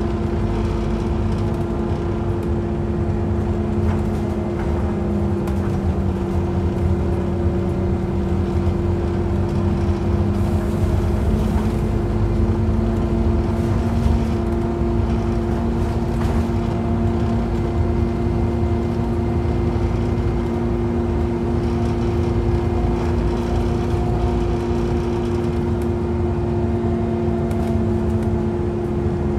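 Scania OmniCity bus under way, heard from inside the passenger saloon: a steady engine and drivetrain drone with a whine held at one pitch, over road rumble.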